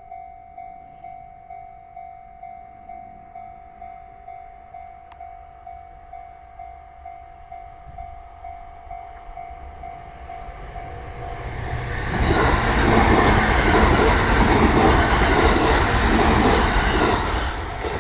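Railway level-crossing warning bell dinging steadily, about twice a second. From about ten seconds in a train passes through the crossing, loud enough to drown the bell, and eases off near the end.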